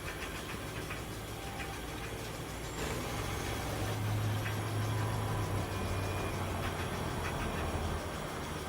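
Machinery running steadily, a low hum that grows louder from about three seconds in and eases near the end, with a few faint clicks.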